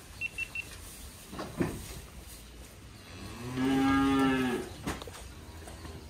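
A Holstein calf moos once, a single call of about a second and a half that rises slightly and falls away. Three quick high beeps sound just after the start.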